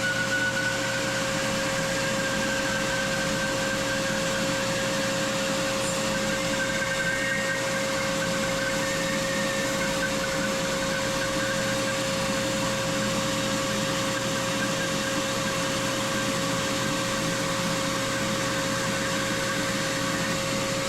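Delta 28-206 band saw running steadily while a rough-cut board is pushed through the blade. A constant motor hum with a faint wavering whine over it.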